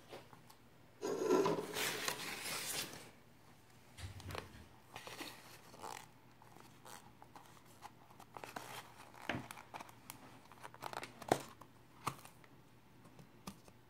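Packing paper crinkling and tearing for about two seconds. After it, scattered small clicks and scrapes as fingers pry at the lid of a plastic deli cup.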